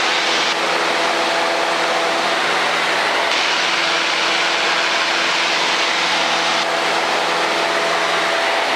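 Cessna 152's four-cylinder Lycoming engine and propeller heard from inside the cabin: a steady drone of hiss with several held tones, unchanging throughout.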